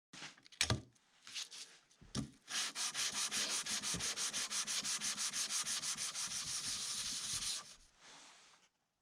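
Quick, even back-and-forth abrasive strokes made by hand, as in sanding, for about five seconds. A couple of handling knocks come before them.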